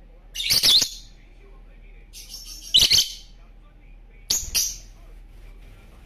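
Lovebirds (Agapornis) giving three short bursts of loud, high-pitched chirping calls, spaced about two seconds apart.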